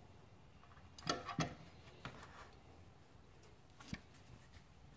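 A few light clicks and knocks of metal transmission parts being handled: the servo assembly in its compressor clamp tool, drawn out of the bore and set down. There are two knocks close together about a second in, another about two seconds in and a last one near the end.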